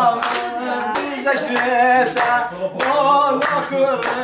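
People singing a song together while clapping their hands in a steady rhythm, a little under two claps a second.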